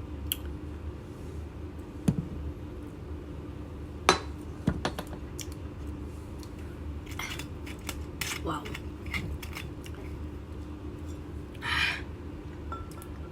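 A spoon clinking against dishware in a few separate sharp clicks, the loudest about four seconds in, as two teaspoons of apple cider vinegar are measured out. A steady low hum runs underneath, and there is a short rush of noise near the end.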